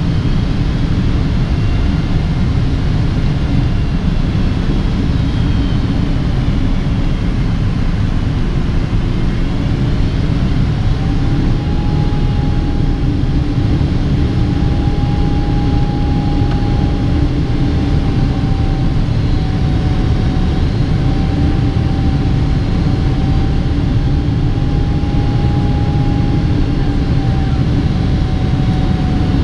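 Steady roar inside the cabin of a Boeing 777-200ER during descent: its Pratt & Whitney PW4090 engines and the rush of air. A thin whine rises about ten seconds in, then holds with a slight waver.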